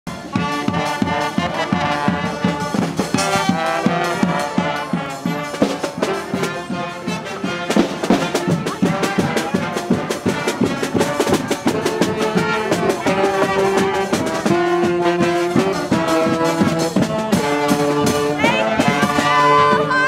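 Street brass band playing a lively tune: trombones and saxophones with a sousaphone bass line over a steady bass-drum beat, with several long held notes in the second half.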